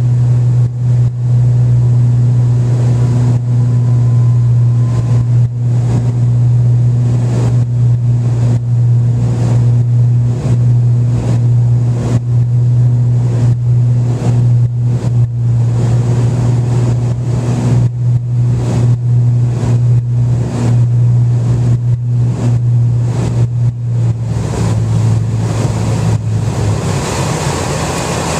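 Cessna 402's twin piston engines droning steadily, heard from inside the cockpit on final approach. About four seconds before the end the drone drops lower as power comes back for the landing, and a rushing air noise rises as the plane comes down over the runway.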